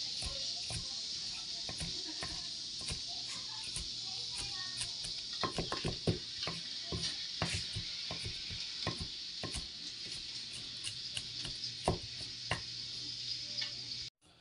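Kitchen knife slicing garlic finely on a cutting board: irregular knocks of the blade against the board, a few a second, over a steady hiss. The sound cuts off suddenly just before the end.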